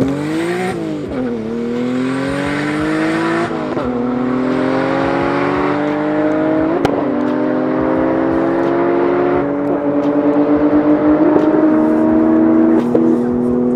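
Turbocharged straight-six engines of a Toyota Supra (2JZ-GTE) and a Nissan Skyline GT-R R34 (RB26DETT) at full throttle from a standing start, the pitch climbing in each gear and dropping sharply at each upshift, several times over.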